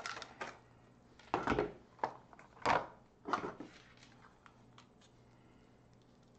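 Hands handling small craft materials: a few irregular rustles and dull knocks, the loudest about one and a half and three seconds in, then only faint ticks.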